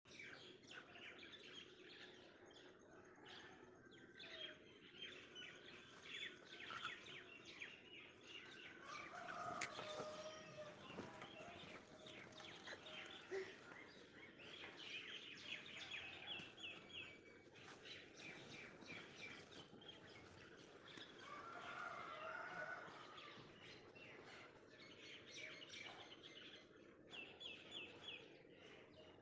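Faint birds chirping, with several quick trilled runs of chirps and a couple of lower calls partway through.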